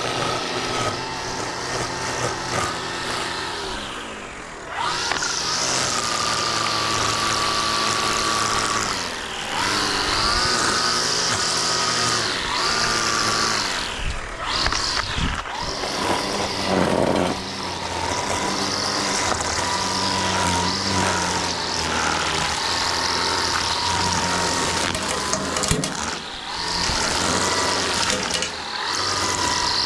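String trimmer edging grass along a concrete sidewalk and driveway. Its motor whines steadily and eases off and picks up again several times.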